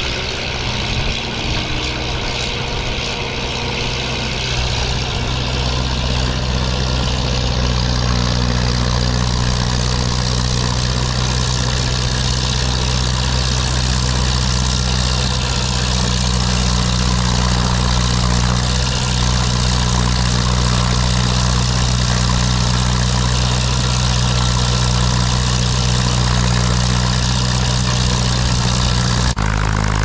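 Case 830 tractor engine running steadily at an even working speed while driving its snowblower, with a steady rushing noise of the blower and thrown snow over it. The engine note shifts abruptly near the end.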